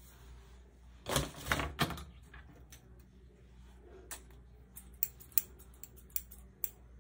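A brief scratchy rustle about a second in, then a scatter of small sharp clicks and taps over the second half, from small hand-held grooming tools being handled.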